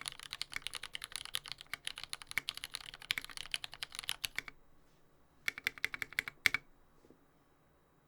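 Typing on a TX75v2 mechanical keyboard with lubed Retooled Black linear switches on a brass plate: rapid keystrokes that stop about four and a half seconds in, then a short flurry of keystrokes ending on one louder stroke, after which the typing stops.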